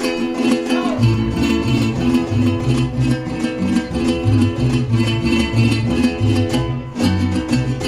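Mariachi band playing an instrumental passage: rhythmically strummed string chords, joined about a second in by a pulsing bass line.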